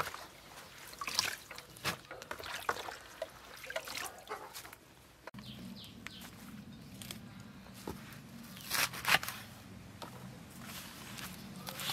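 Water dripping and trickling from a plastic colander into the plate beneath it. After a break about five seconds in, a knife chops through water hyacinth stems on a wooden cutting board, in a few short runs of cuts.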